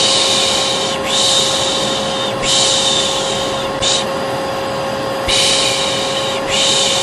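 A hair dryer runs steadily with a motor whine, while a person shushes over it in rhythm, a 'shh' about once a second. This is the white-noise shushing used to calm a colicky baby.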